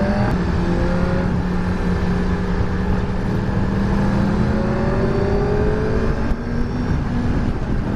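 Honda CBR600F's inline-four engine pulling under acceleration while riding, its pitch climbing steadily through the revs, over wind rush.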